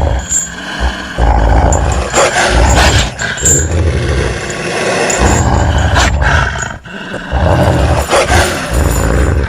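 Wolf growling and snarling in long, rough bouts, with brief breaks between them.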